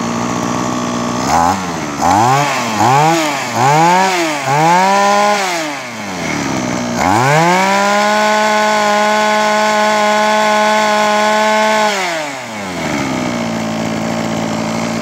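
Mitsubishi TB26 brush cutter's two-stroke engine idling, then blipped up and down about five times in quick succession, then held at high revs for about five seconds before dropping back to an even idle. It picks up revs quickly, which the seller takes as the sign of a very responsive engine.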